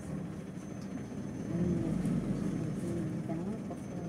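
City bus engine running, heard from inside the passenger cabin as a low steady rumble.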